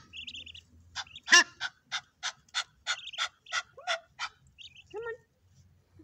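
Egyptian goose calling a rapid series of about ten harsh honks, roughly three a second, with thin high peeps from its goslings near the start and in the middle.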